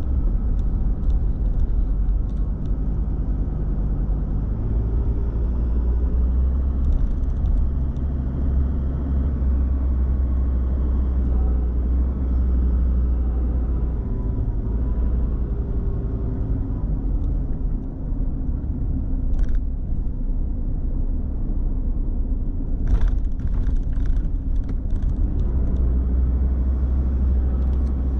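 Car driving: a steady low rumble of engine and road noise, with faint engine tones slowly shifting in pitch and a few brief clicks in the second half.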